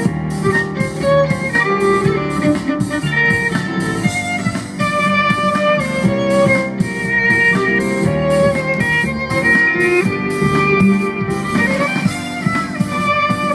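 Live duo of violin and double bass: the bowed violin carries a quick melody over the double bass's steady low accompaniment, in a pop-classical style.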